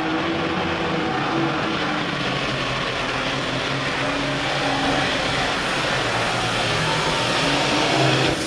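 Super farm class pulling tractor's turbocharged diesel engine running flat out under load as it drags a weight-transfer sled, a loud, steady roar with a wavering engine pitch. It builds slightly, then falls away right at the end as the run is flagged off.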